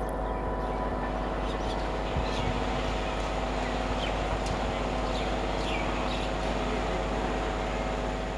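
BEML electric multiple unit train approaching with a steady electric hum made of several level tones, with a few bird chirps about halfway through.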